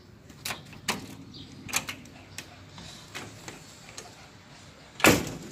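A screen door being handled as someone comes in: a few light clicks and knocks, then one loud knock near the end as the door is shut.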